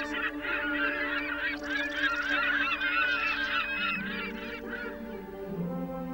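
A flock of gulls calling, many overlapping cries, over soft background music with long held notes; the calls thin out about five seconds in while the music carries on.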